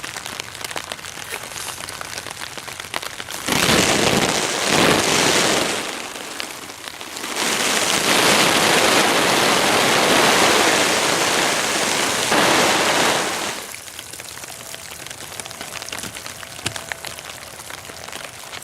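Garden hose spray beating down on a Dyneema (Cuben fiber) tarp overhead, over light rain patter. A short heavy burst comes about three and a half seconds in, and a longer one runs from about seven to thirteen seconds. Then only the light patter is left.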